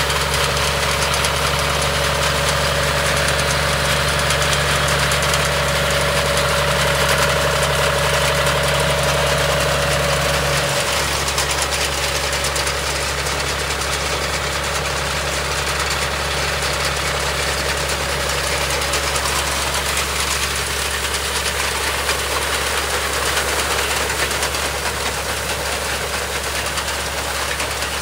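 John Deere tractor's diesel engine running steadily under load while it drives a front-mounted Vasundhra Super reaper cutting ripe paddy. About eleven seconds in, one low hum drops out and the engine sound shifts slightly.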